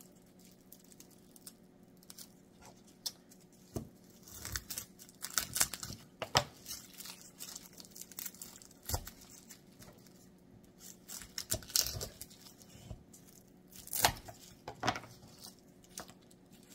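Dry papery garlic skins crackling and tearing as a head of garlic is broken apart into cloves by hands in plastic gloves. The crackles come irregularly, with a few sharper snaps and knocks on the cutting board.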